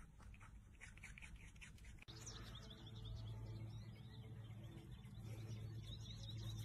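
Faint rapid crunching of a small rodent nibbling a carrot. After about two seconds it gives way to outdoor sound: a low steady hum and a few faint bird chirps.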